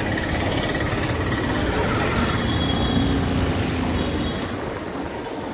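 Steady street traffic noise: a constant rumble and hiss with no distinct single event.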